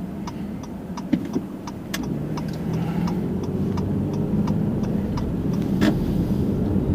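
Car turn signal ticking, about three clicks a second, over low engine and road rumble in the cabin as the car pulls out and speeds up.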